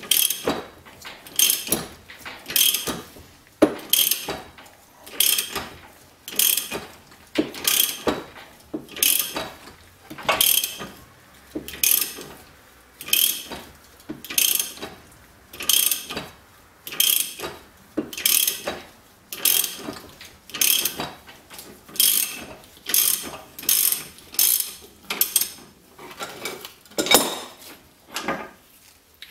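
Ratchet spanner clicking in short, even bursts a little over once a second as it winds a gear puller, drawing the rear coupling gear off the crankshaft of an Ariel Square Four engine.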